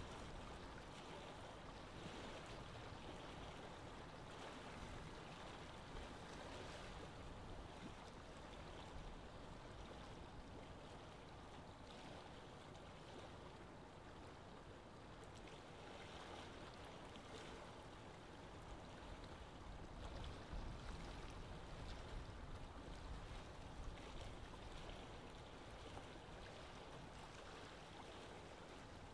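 Faint, steady hiss of background noise: room tone under a silent screen recording.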